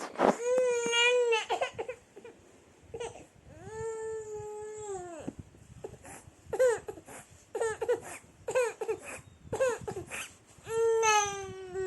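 A baby fussing and crying: drawn-out whiny wails, with a run of short, choppy cries in the middle.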